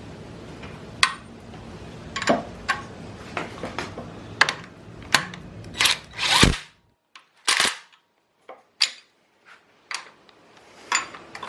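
Sharp metallic clicks and clanks of a socket wrench and tools on a 19 mm bolt as a power steering bracket is tightened onto the engine. A steady low hum runs underneath for the first six seconds or so.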